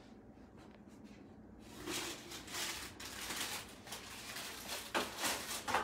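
Parchment paper rustling and crinkling in irregular bursts as a baked pizza on a baking tray is pulled out of the oven and set on the stovetop, starting about two seconds in. Two sharper knocks come near the end.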